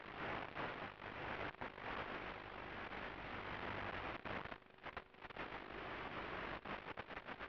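Steady rushing hiss from the audio channel of an analog FPV video link, dipping briefly about halfway through and again near the end.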